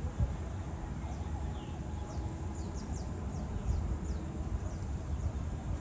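Wind buffeting the microphone in a steady low rumble, with a bird giving a quick run of short, high chirps that fall in pitch in the middle.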